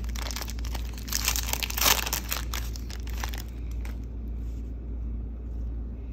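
Wrapper of a 2019 Panini Prizm Baseball trading-card pack crinkling and tearing as it is pulled open by hand. The crackling is loudest around one to two seconds in and stops about four seconds in, leaving only faint card handling.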